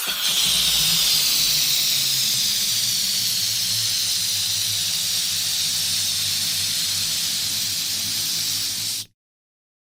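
Electric balloon inflator running: a steady, loud rush of blown air over a low motor hum, the airy hiss sinking slightly in pitch, then cutting off abruptly about nine seconds in.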